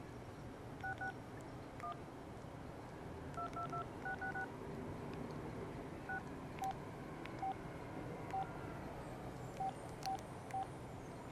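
Casio G'zOne Ravine flip phone's keypad tones: short touch-tone beeps, one per key press, as a web address is typed by multi-tap. Some keys are pressed twice or three times in quick succession for one letter, then spaced single beeps follow.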